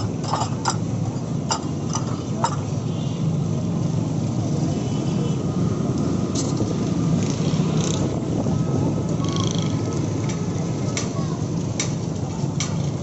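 Roadside street noise: a steady rumble of traffic, with sharp clicks and knocks scattered through and faint voices in the background.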